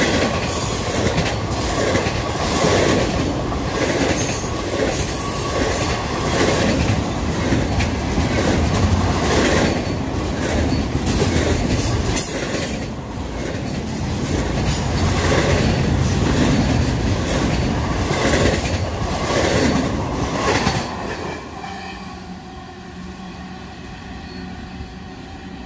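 Double-stack intermodal freight train's well cars rolling past close by: a steady rumble of steel wheels with repeated, unevenly spaced clacks over the rail joints. About 21 seconds in the sound drops off sharply as the last car passes and the train draws away.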